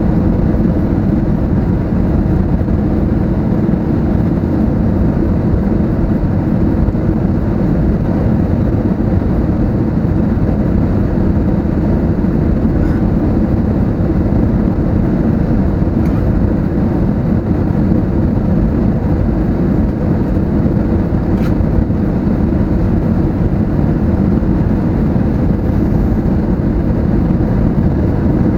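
Steady, loud cabin rumble inside an Airbus A320neo airliner on approach, from its engines and the airflow over the fuselage, with a few faint ticks.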